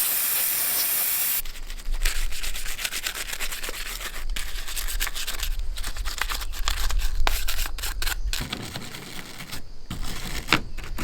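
A can of brake cleaner sprays in one steady hiss for about a second and a half. Then the chainsaw's bar area is scrubbed with rapid scratchy rubbing strokes, which thin out to a few scrapes and clicks near the end.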